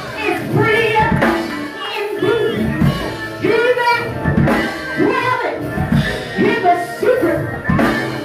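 Live church music: a voice singing or chanting over a drum kit and other instruments.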